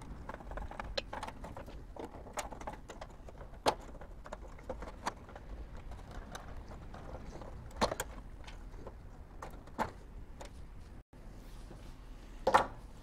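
Scattered small clicks and taps as crimped wire connectors are squeezed and worked off the terminals of a toaster oven's power supply board, with sharper clicks about four and eight seconds in.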